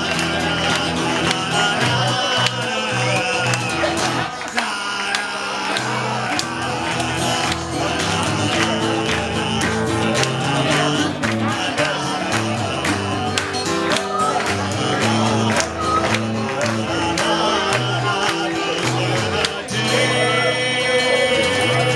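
Live guitar duo playing an instrumental passage: a strummed acoustic guitar with a second guitar, steady and full throughout.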